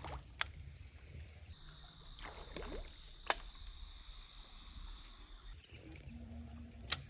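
Outdoor ambience of insects singing in a steady high, thin tone that drops lower for a few seconds in the middle, with three short sharp clicks, the loudest near the end.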